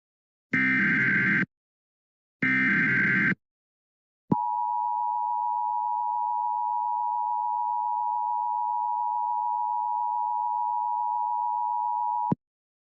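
Emergency Alert System header tones: two bursts of SAME digital header data, each about a second long with a short gap between them. After a second's pause comes the steady two-tone EAS attention signal, held for about eight seconds and then cut off suddenly.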